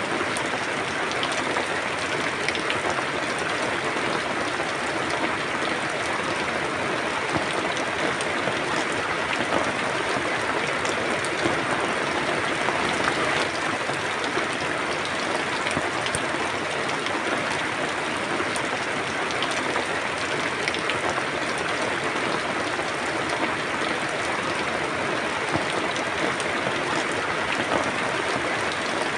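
Steady rain falling, an even dense patter with many small drop ticks.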